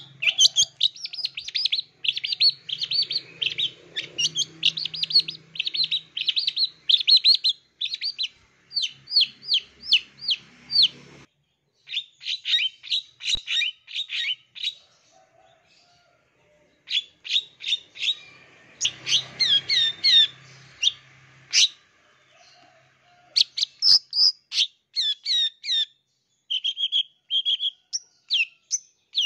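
Long-tailed shrike (cendet) singing fast runs of short, high chattering notes, broken by a few brief pauses. It is a mimicking song, full of borrowed calls ("full isian").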